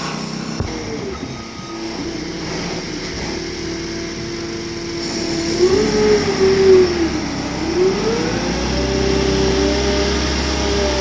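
Diesel engine of a Caterpillar construction machine working, its pitch rising, dipping briefly, then climbing and holding higher as it revs under load.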